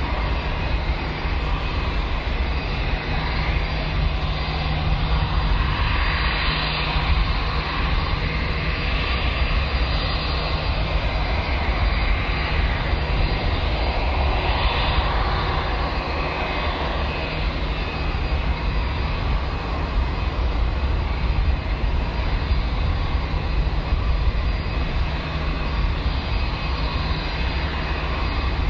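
Airbus A320-232's IAE V2500 jet engines running steadily at low taxi power: an even rush with a faint high whine over a low rumble.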